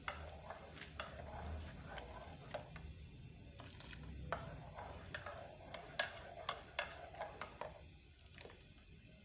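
Scattered sharp clicks and knocks of kitchen utensils and dishes being handled, more of them in the middle of the stretch, over a low steady hum.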